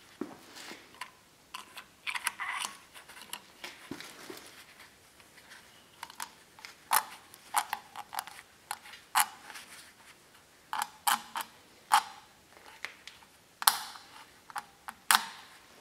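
Irregular small metal clicks and scrapes from a hydroboost's push rod, return spring and star-shaped retainer being handled and pushed into the booster by gloved hands, with some glove rustling; a few sharper clicks come in the second half.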